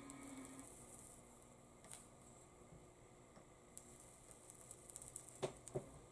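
Faint soldering work: scattered light ticks and small crackles as the iron and solder work a socket's pins on a circuit board, with two sharper clicks near the end.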